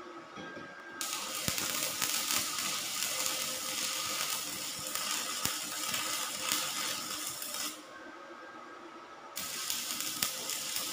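Stick (MMA) welding arc from a 2.6 mm electrode on 5 mm steel plate, run by a Blackfoot MMA-120 inverter welder at 70 amps. It sounds as a steady, even noise. The arc strikes about a second in and burns steadily, breaks off a little under eight seconds in, and is struck again about a second and a half later.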